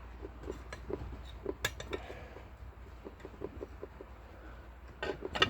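Light metallic clicks and clinks, a couple a second, with a louder cluster near the end: a wrench working a nut welded onto a broken stud in a John Deere clutch, trying to turn the stud out.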